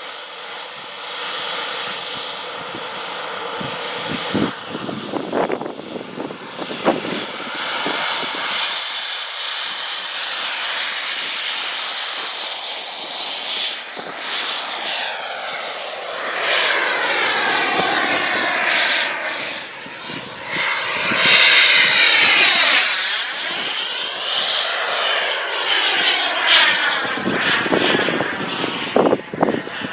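Merlin 90 model jet turbine in a TOP RC Cougar RC jet, a high-pitched whine that climbs steeply about six seconds in as the turbine spools up, followed by the jet's rushing turbine sound sweeping up and down as it passes. Wind buffets the microphone near the end.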